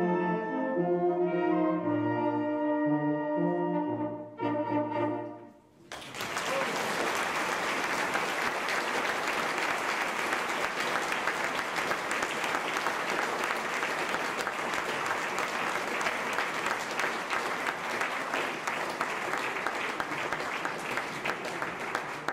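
A wind band's brass plays the closing bars of a piece and ends on a short final chord. About six seconds in, the audience breaks into steady applause that starts to fade at the very end.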